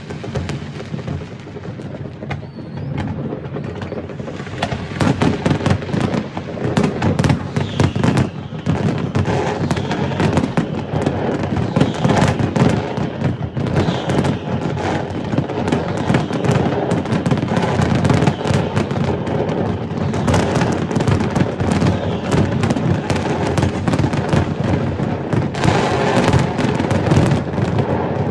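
Large fireworks display: a dense, continuous run of bangs and crackles, growing louder and busier about five seconds in.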